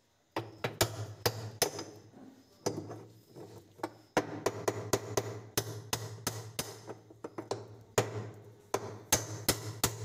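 Hammer striking a steel hub-nut spanner, a string of sharp knocks about two to three a second with a short lull about three seconds in. The blows are meant to shock loose the tub hub nut on a washing-machine gearbox shaft, which may be rusted on.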